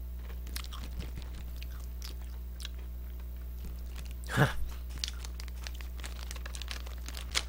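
Soft crunching and chewing of a crunchy Pepero biscuit stick, with many small scattered crackles and one louder brief handling noise of the packaging about four and a half seconds in. A steady low electrical hum runs underneath.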